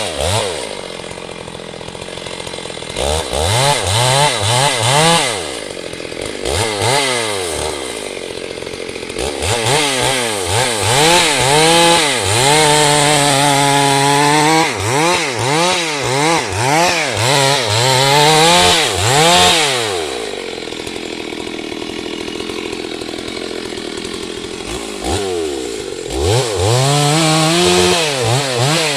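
Chainsaw revving up and down over and over while cutting a tree, dropping back to a lower steady idle twice and held at high revs for a couple of seconds near the middle.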